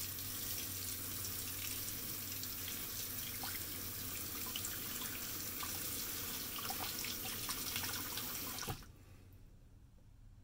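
Bathroom sink tap running with water splashing into the basin, shut off abruptly near the end.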